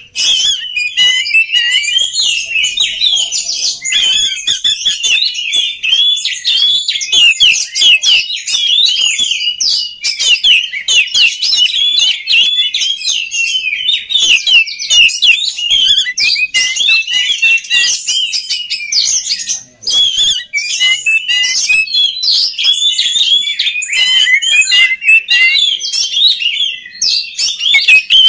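Oriental magpie-robin (kacer) singing a long, fast, continuous song of high whistled and chattering notes, with one short pause about twenty seconds in.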